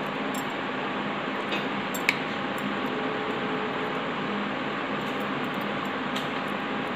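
Steady hiss of room background noise with a few light clicks, the sharpest about two seconds in.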